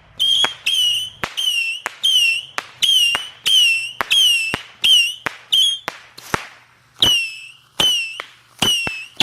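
A small firework missile battery firing in quick succession: a string of short high whistles, each falling slightly in pitch and ending in a sharp pop, about two a second, with a brief pause around six seconds in.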